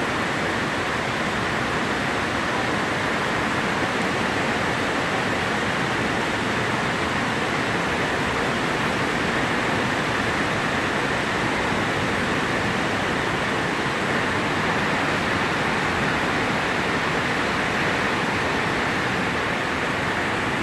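Rain on the metal roof of a steel shop building, heard from inside as a steady, even rush of noise.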